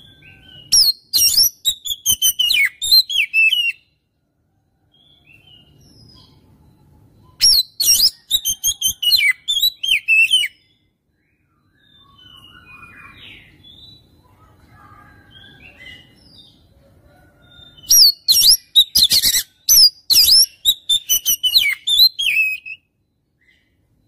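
Oriental magpie-robin (kacer) singing in three loud bouts of fast, harsh song, each about three to five seconds long. The bouts mix high whistled glides with rapid staccato notes, and fainter scattered calls fill the gaps between them.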